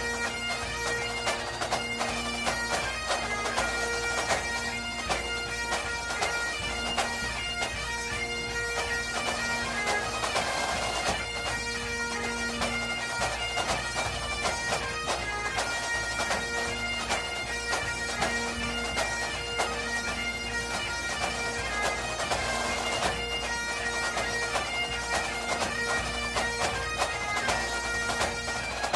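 Background bagpipe music: a pipe tune of short stepping notes played over steady, unbroken drones.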